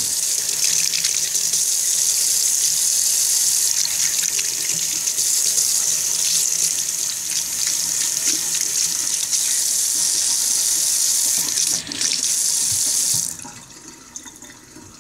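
Kitchen faucet running into a stainless steel sink as hands are rinsed under the stream, the splashing shifting as the hands move. The water shuts off near the end.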